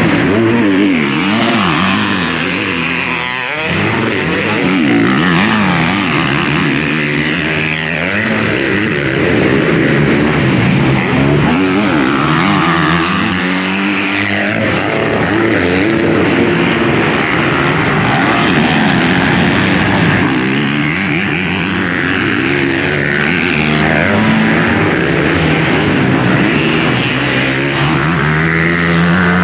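Several junior motocross bikes racing, their engines revving up and down as they pass, with the pitch rising and falling every few seconds.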